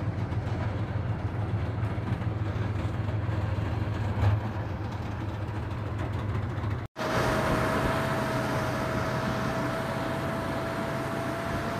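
Armoured tracked vehicle running on the move with a steady low engine rumble, with one louder jolt about four seconds in. After a cut about seven seconds in, the running goes on with a steady high whine added.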